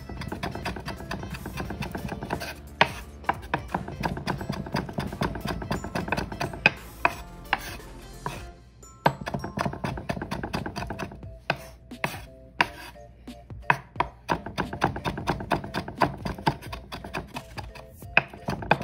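Chef's knife rapidly chopping fresh green herbs on a wooden cutting board: quick, uneven taps of the blade on the wood, with a short pause about halfway through.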